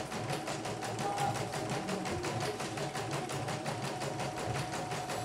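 YOKO portable computerized embroidery machine stitching a design on a test run after servicing. It makes a rapid, even rhythm of needle strokes over a steady motor hum, and it is running smoothly.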